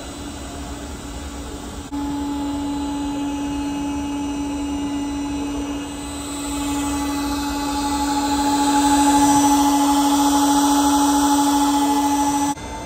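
Electric air pump inflating an inflatable kayak, running with a steady hum. It gets louder about two seconds in and again midway, then cuts off abruptly near the end.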